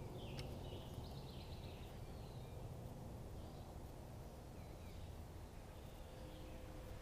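Faint chirps and short trills of birds over a steady low background noise, the noise being the loudest part.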